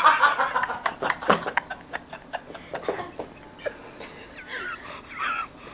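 A man laughing hard: loud pulsing laughter at first that trails off into short breathy gasps and faint squeaky wheezes.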